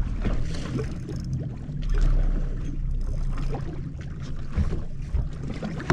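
Wind buffeting the microphone and water against the hull of a bass boat, with a steady low hum underneath. Gusts of rumble come early on and again about two seconds in.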